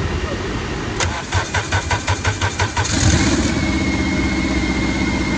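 Honda four-cylinder car engine cranked by its starter, with about eight even pulses over two seconds. It catches about three seconds in and settles into a steady idle with a thin, high whine.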